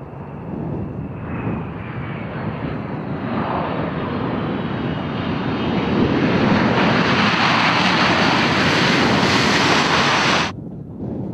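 Four turbofan engines of a Boeing C-17 Globemaster III running loud, a dense rush with a faint whine, building over the first several seconds to a peak, then cutting off suddenly near the end.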